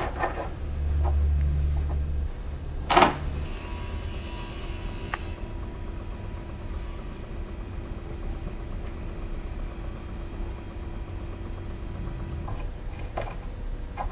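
Record player with a vinyl record spinning: a low rumble, then one sharp knock about three seconds in, followed by a faint steady hum with a few soft clicks near the end.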